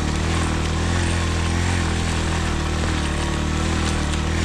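Motorcycle engine running steadily under load, pulling up a climb on an unpaved mountain track.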